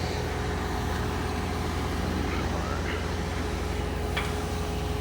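A crane's engine runs with a steady low drone, and a thin steady hydraulic whine comes in at the start as the boom lifts the man basket. A short tick is heard near the end.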